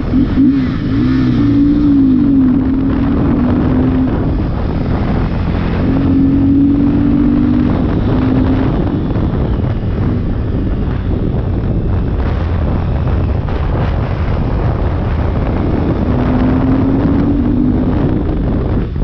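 Sport motorcycle engine running under way, its note rising and falling with the throttle, buried in heavy wind buffeting on the microphone at road speed.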